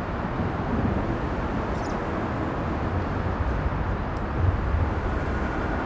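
Steady low outdoor background rumble with no train passing on the bridge.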